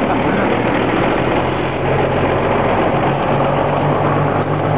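Engine of a 1952 White WC28 40-ton wrecker running steadily while the truck is driven slowly back and forth, its low note getting a little stronger about three seconds in.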